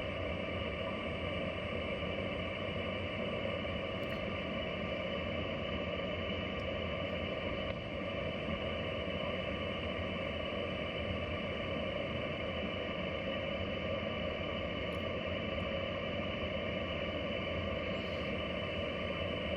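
Steady static hiss from a ham radio receiver's speaker tuned to the 6-metre band, with no stations coming through: an empty band.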